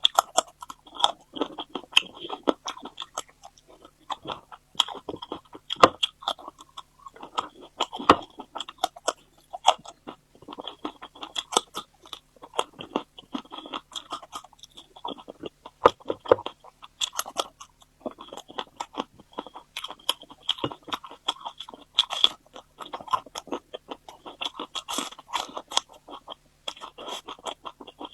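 Close-miked ASMR eating: a person chewing with frequent crisp crunches at an uneven pace, broken by a few short pauses.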